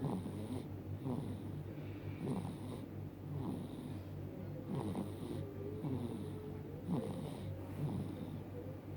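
Four-month-old baby snoring in sleep: snuffly, noisy breaths repeating roughly once a second.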